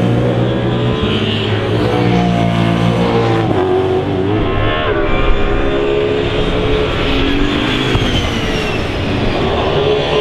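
BMW M3 E92 race car's 480 bhp V8 engine at high revs, its pitch dropping at gear changes about one and three and a half seconds in, then running on with wandering revs.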